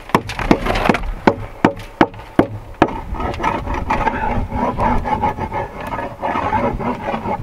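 Hammer driving nails into a rough-sawn wooden strapping board on a house wall: a run of about eight sharp blows, roughly two and a half a second, for the first three seconds. After that comes about four seconds of steadier rubbing and scraping noise.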